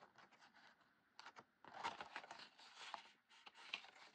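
Faint rustling, scraping and small crinkles of kraft cardstock being folded and pressed together by hand, in scattered short bursts.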